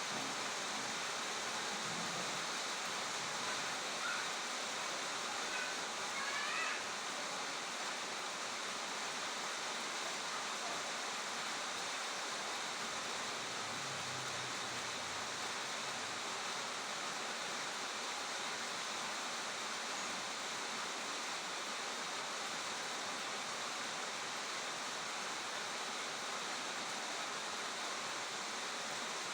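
Steady rush of running water, even and unbroken, with a few faint short chirps in the first seven seconds.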